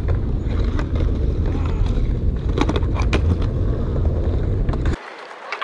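Skateboard wheels rolling over stone paving with a steady low rumble. A cluster of sharp clicks comes around the middle as the wheels cross the joints, and the rumble cuts off about five seconds in.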